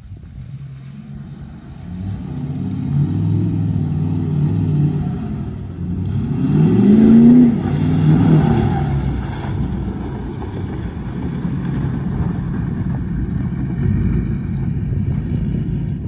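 Ford F-250's Power Stroke diesel V8 driving through mud. The engine builds up, revs up to its loudest about seven seconds in as the truck ploughs through the puddles, then runs on steadily, with mud and water spraying from the tyres.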